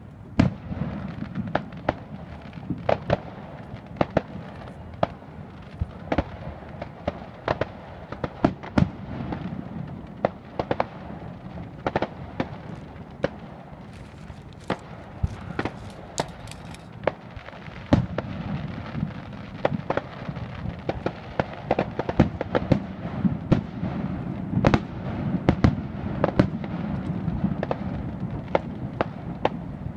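Fireworks display: aerial shells bursting in a steady run of sharp bangs, at times several a second, over a continuous low rumble. The bangs come thicker in the second half.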